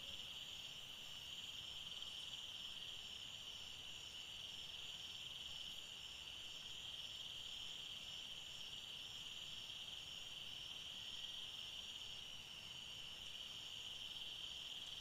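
Faint, steady, high-pitched trilling of an insect chorus, unbroken and without pauses.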